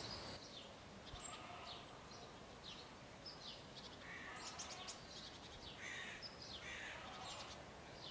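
Small birds chirping and calling, many short high notes scattered throughout, over a faint steady outdoor hiss.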